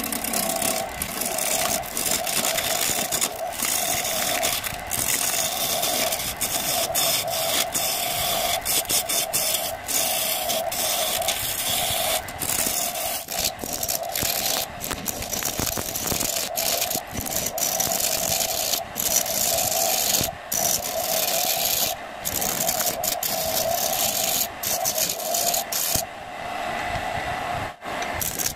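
Wood lathe running with a steady hum while a hand-held chisel cuts into a spinning acacia blank: a continuous hissing scrape with many brief breaks as the tool lifts off the wood. Near the end the cutting stops for about two seconds while the lathe keeps running.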